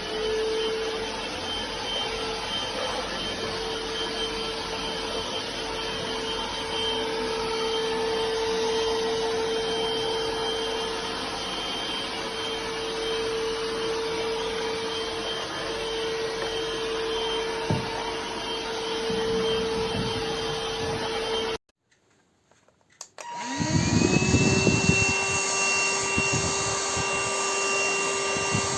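Rowenta XPert 6.60 cordless stick vacuum running with a steady high whine. About three-quarters of the way through it cuts off abruptly, then after a short silence the motor spins up with a rising whine and runs steadily again.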